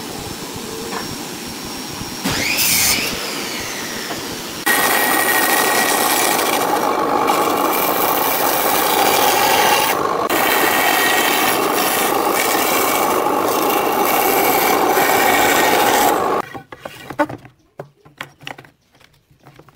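Benchtop band saw cutting through a wooden board, a loud steady sawing noise for about twelve seconds that stops abruptly near the end. Before it there is quieter rubbing on wood with a brief rising whine; after it, only faint knocks of wood being handled.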